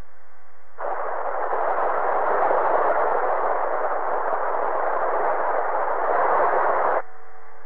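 A loud rush of FM radio static comes over the relayed radio link. It starts suddenly about a second in and cuts off abruptly near the end, the hiss of a lost or too-weak signal on an FM channel.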